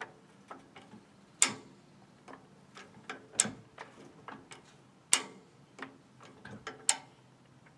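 Hi-Lift Handyman jack being worked by its lever: a sharp metal clack about every two seconds as the climbing pins drop into the next hole and the jack moves up its perforated steel bar, with lighter ticks of the mechanism between strokes.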